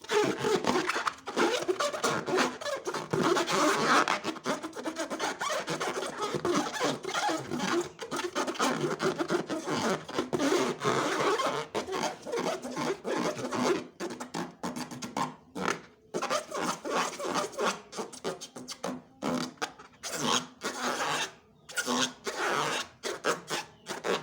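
Slime being squished, stretched and stirred by hand: a dense run of wet crackling clicks and rubbing that breaks into shorter bursts with pauses in the second half.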